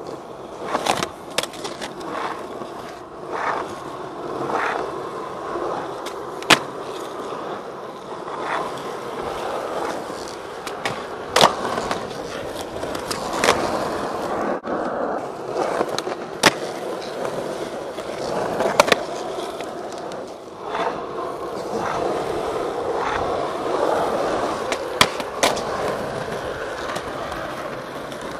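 Skateboard wheels rolling over rough asphalt, broken several times by sharp clacks of the board popping and landing.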